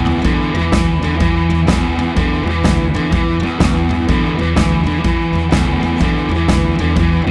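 Rock background music with electric guitar and a steady drumbeat.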